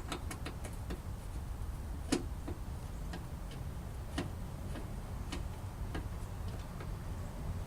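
Phillips screwdriver working the screw inside a car's fender flare: scattered light clicks of metal on the screw and trim, about one every half second to second, the sharpest about two seconds in, over a steady low hum.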